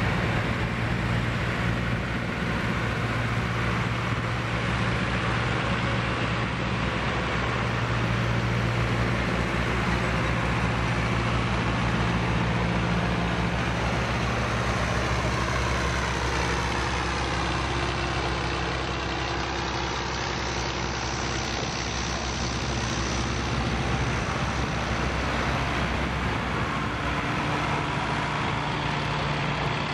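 John Deere farm tractor engines running as the tractors drive slowly past one after another, a steady low engine hum.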